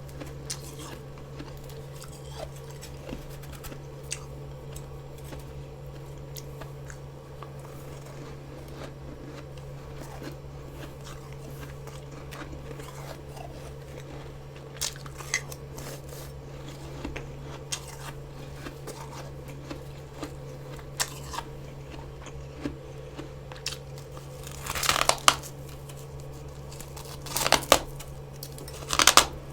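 Soft frost being bitten and chewed: scattered small crackles and clicks for most of the time, then three loud crunching bites in the last few seconds. A steady low hum runs underneath.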